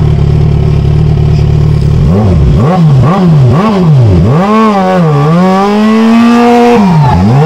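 A sport motorcycle engine being revved hard while standing. It holds a steady high note for about two seconds, then gives a quick run of throttle blips that rise and fall, then is held high before dropping and rising again near the end.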